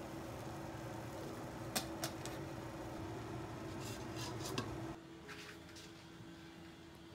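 Steamer pot of rice dumplings heating on the stove, with a steady low rushing hum and a couple of light metallic clinks. About four seconds in there is a short run of clinks as its glass lid is lifted. About five seconds in the sound drops to quiet room tone.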